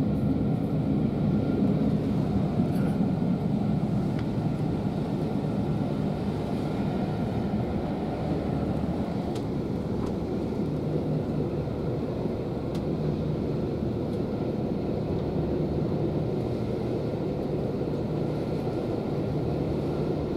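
Steady rumble of a moving railway passenger carriage heard from inside, the wheels running on the track, with an occasional faint click.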